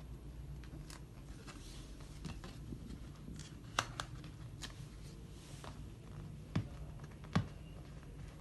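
Hands working a paperboard tray blank, peeling the backing off double-sided adhesive strips: scattered light taps and ticks with a couple of soft rustles, over a steady low hum.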